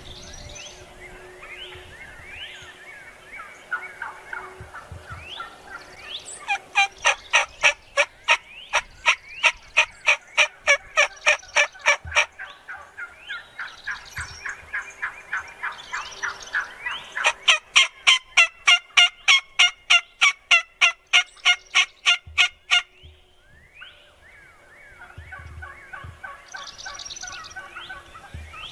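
Wild turkeys calling: two long runs of loud, evenly spaced raspy yelps, about four notes a second, each lasting five or six seconds. Between them come softer short rising chirps and clucks.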